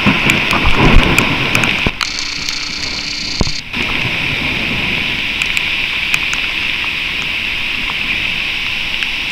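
Heavy rain and flash-flood runoff pouring down sandstone canyon walls: a steady rushing hiss with scattered small pops. The sound is briefly muffled about two seconds in.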